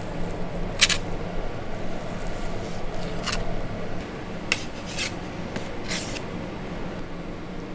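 A fillet knife working through a fish: about five short, sharp scraping strokes, spread over the first six seconds, over a steady low hum.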